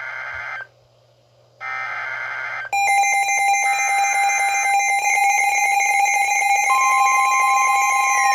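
Midland NOAA weather radios going off for a severe thunderstorm alert. First come two short buzzy data bursts of the alert header, with a silent gap between them. Then, a few seconds in, a radio's steady electronic alarm tone starts with another buzzy burst over it, and the higher steady weather radio warning tone joins near the end.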